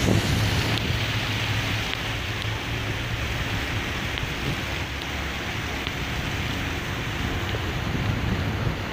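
Fountain water jets spraying and splashing into the basin: a steady rushing hiss with a low rumble underneath.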